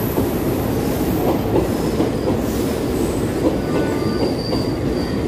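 Passenger train coaches rolling along the platform track: a steady rumble and clatter of steel wheels on the rails, with a faint high wheel squeal about four seconds in.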